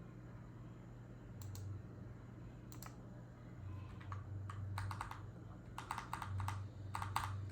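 Keys of a Keychron K10 full-size mechanical keyboard being typed on: a few scattered single key presses, then quicker runs of keystrokes from about halfway through. It makes a crisp clacking that is called very satisfying.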